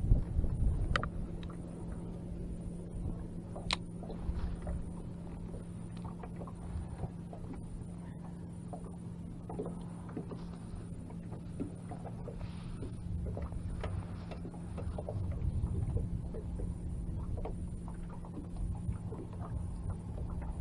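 Quiet sounds aboard a small fishing boat: a steady low hum under a low rumble, with scattered small clicks and taps, the sharpest about one and four seconds in.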